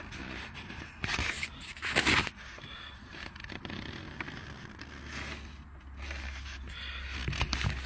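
Handling noise from a phone being turned and moved around: scraping and rubbing against its microphone, with a couple of sharper knocks about one and two seconds in.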